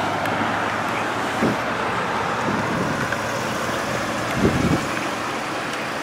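Steady street traffic noise, a continuous hiss of cars on the road, with a soft low thump about a second and a half in and another about four and a half seconds in.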